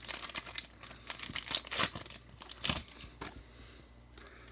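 A baseball card pack's wrapper being torn open and crinkled by hand: a quick string of sharp crackles and rips, loudest a little past the middle, going much quieter after about three seconds.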